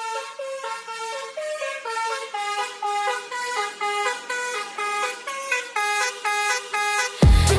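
Intro of a dance track: a tune of short horn-like honks, about three notes a second, stepping up and down in pitch. Near the end a heavy kick drum and bass come in.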